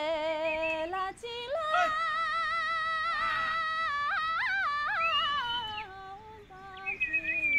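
A single unaccompanied voice singing long, held notes with a wavering vibrato. A thin high note slides downward near the end.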